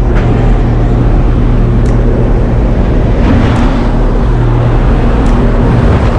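Light aircraft's engine and propeller droning loudly and steadily inside the jump plane's cabin, with air rushing at the open door, and a few brief knocks as bodies and gear shift about.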